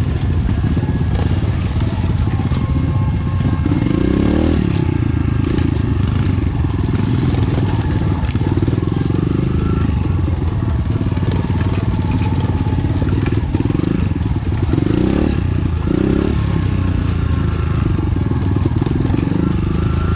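Enduro dirt-bike engine running on a trail ride, with its revs rising and falling several times, most clearly about four seconds in and again near fifteen seconds.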